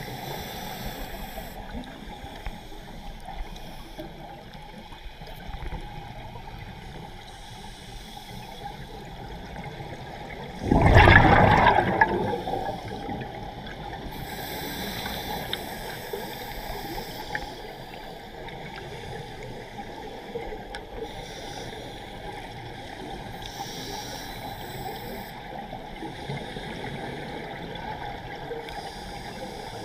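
Underwater ambience heard through a camera's underwater housing: a steady watery hiss, broken about a third of the way in by one loud, roughly one-second gush of scuba exhaust bubbles that then fades.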